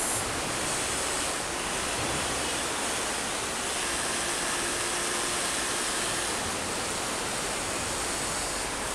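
Steady rushing of a river, an even wash of water noise. From about three and a half to six seconds in, a faint motor whine rises from the RC excavator as its boom lifts.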